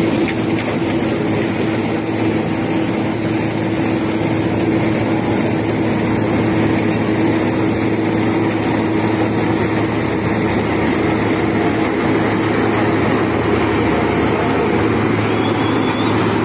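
Dynapac tandem road rollers running steadily as they compact fresh asphalt: an even engine drone with a steady hum.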